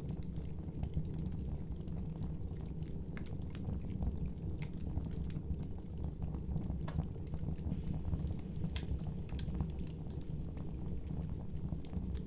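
Campfire burning: a steady low rush of flames with scattered sharp crackles and pops, a couple a second.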